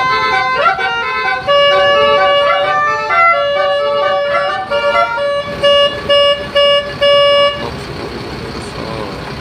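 Indonesian 'telolet' multi-tone bus horn playing a jingle: several horn notes hop in pitch like a tune, ending in a few short repeated blasts and one longer note. It stops about three-quarters of the way through, leaving steady vehicle noise.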